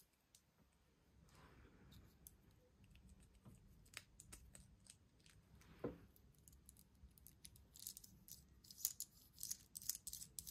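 Faint handling of Kinder Surprise egg packaging: scattered light clicks and soft crinkling. The clicks grow busier near the end.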